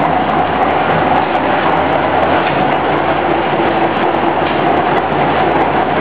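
Alfa Romeo 2.0-litre four-cylinder with individual throttle bodies and open intake trumpets, running at steady revs: loud and even, with no rise or fall in pitch.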